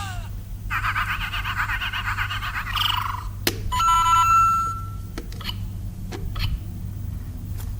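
Lego Super Mario figure's small speaker playing electronic sound effects: a warbling burst of many tones, a sharp click, then a held beep.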